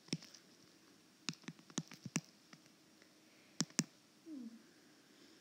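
Faint, irregular light clicks and taps, about seven of them, two close together past the middle, with a brief low rising sound shortly after.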